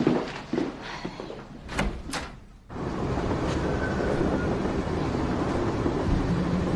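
A few knocks and clicks of a door being shut, two sharper strikes about two seconds in. After a short hush, a steady rumbling ambience begins, like traffic noise.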